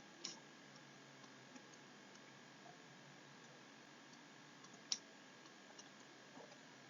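Near silence with steady faint hiss, broken by two short clicks, one just after the start and a sharper one about five seconds in.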